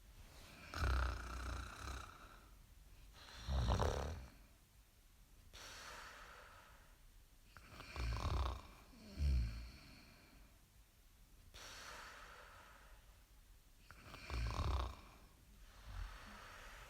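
A person snoring: four bouts of loud, low snores, the third in two quick parts, with softer breathing between them.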